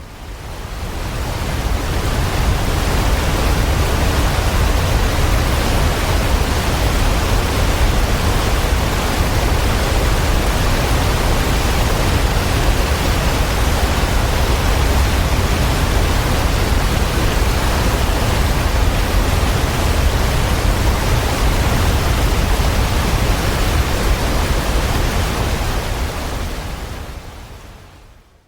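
Steady rushing of running water, fading in over the first couple of seconds and fading out near the end, with a heavy low rumble under an even hiss.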